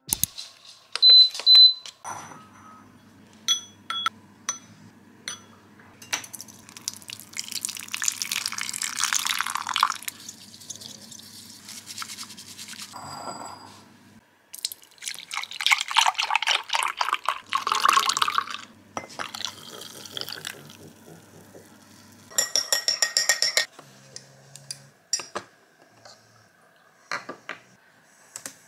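Kitchen sounds of matcha being made: liquid poured and running, a bamboo whisk brushing matcha briskly in a ceramic bowl, and scattered clicks and taps of utensils. Near the end a spoon clinks quickly against a glass as the drink is stirred.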